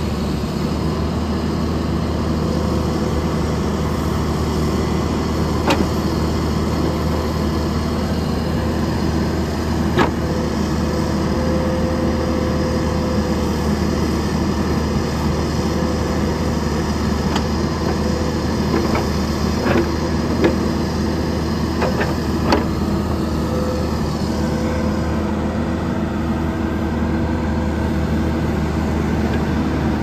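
John Deere 310SJ backhoe loader's diesel engine running steadily under load while the backhoe digs soil, with a few sharp knocks from the bucket and boom, the strongest about a third of the way in and again near two-thirds in.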